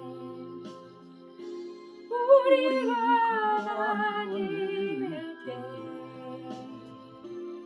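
Gospel song accompaniment between sung lines: sustained chords under a wavering melody that comes in louder about two seconds in and fades back near the five-second mark.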